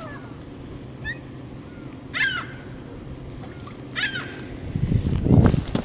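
Seagulls calling, three short calls spaced over a few seconds. Near the end, a loud burst of low rumbling noise, the loudest sound.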